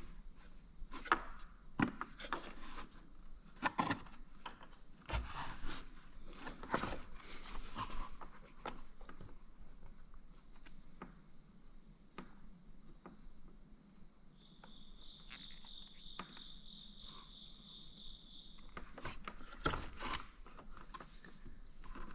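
Scattered clicks, taps and rubbing of hand work on parts, over a steady high-pitched insect trill; a second, lower insect trill joins for a few seconds past the middle.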